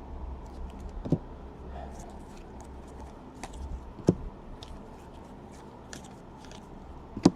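Trading cards and their packaging being handled by hand: faint light ticks and rustling, with three sharper taps, about a second in, about four seconds in and near the end.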